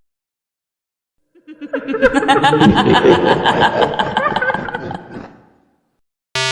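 A group of people laughing, setting in about a second and a half in, loudest through the middle and fading out after about four seconds.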